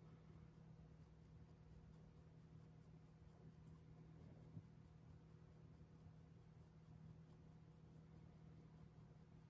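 Faint scratching of a pointed tool scoring the rim of a soft clay bowl, over a steady low hum, with one small tap about halfway through.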